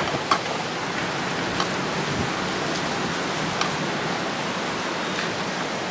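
Steady rushing wind, a constant even noise on the phone's microphone.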